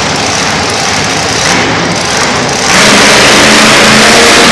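Monster truck engine running, then revved hard about two-thirds of the way in, when the sound jumps to a very loud roar.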